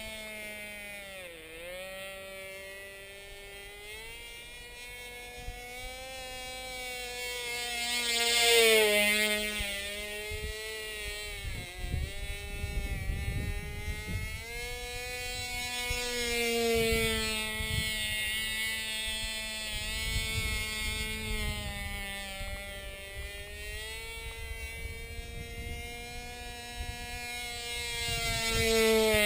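Cox model airplane engine, a tiny two-stroke glow engine, buzzing steadily as it flies on a homemade flying wing. Its high pitch dips and rises as the plane passes and turns, and it is loudest as the plane comes close about eight seconds in and again near the end.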